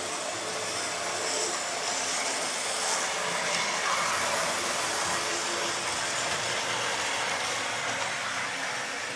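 Model trains running on the layout's track: a steady whirring of small electric motors and wheels on the rails, a little louder in the middle.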